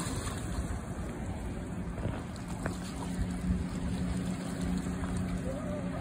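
Motorboat engine running with a steady low hum.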